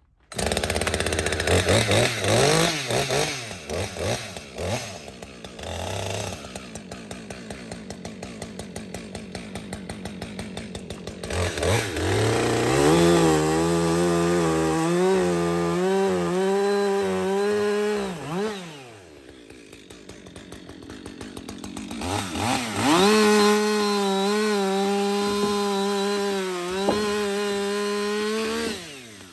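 Two-stroke chainsaw starting suddenly and revving up and down, then idling with a pulsing beat. It then runs at full throttle under load twice, each time for about five or six seconds, as it bucks sawmill cutoffs in a sawbuck, and drops back to idle after each cut.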